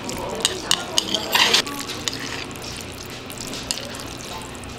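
Metal chopsticks clicking against a plate while mixing jajangmyeon noodles through their black bean sauce. A quick run of clicks comes in the first second and a half, then quieter stirring with an occasional tick.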